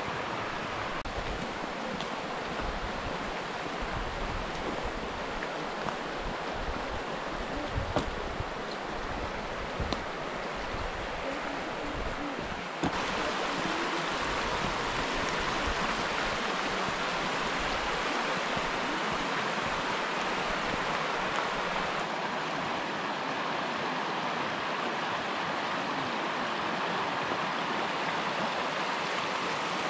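Shallow mountain stream rushing steadily over rocks. It gets louder about a third of the way in, when the stream is heard close up.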